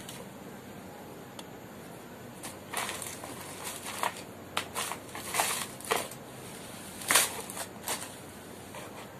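Crinkling and rustling of small plastic component packets being handled, in about eight short, irregular bursts starting about three seconds in.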